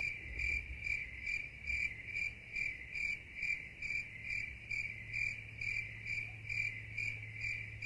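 Cricket chirping at an even pace, about two and a half clear, high chirps a second, over a faint steady hum.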